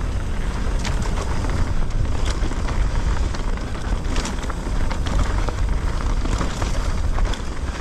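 Wind buffeting an action camera's microphone on a fast mountain-bike descent, with the tyres running over a rough trail and frequent sharp clicks and rattles from the bike.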